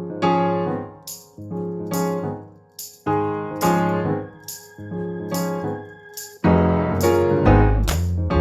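Background music: piano chords struck in a steady rhythm with short high percussion hits between them, a bass and fuller band coming in about six and a half seconds in.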